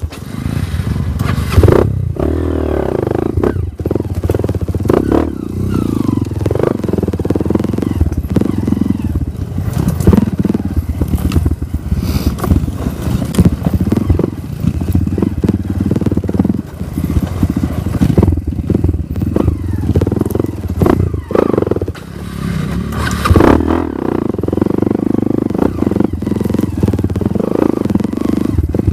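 Dirt bike's engine running with the throttle rising and falling as it rides a rough, rocky trail, with frequent knocks and clatter from the bike jolting over rocks.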